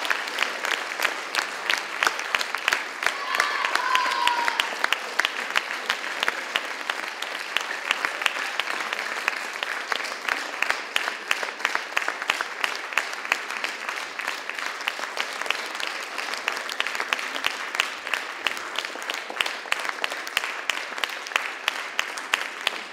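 Theatre audience applauding with steady, dense clapping. A brief pitched sound rises over the clapping about three seconds in.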